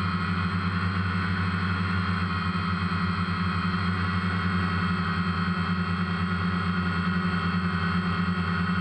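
Quadcopter drone's electric motors and propellers humming steadily, heard from the camera mounted on the drone: a steady many-toned whine with a fast, even flutter.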